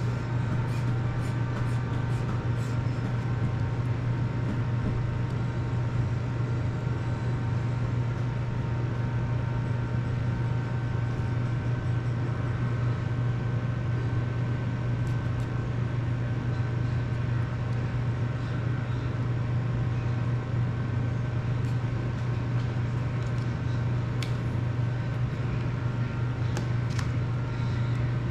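Electric fan running steadily: a constant low hum with an even whir over it and a few faint clicks.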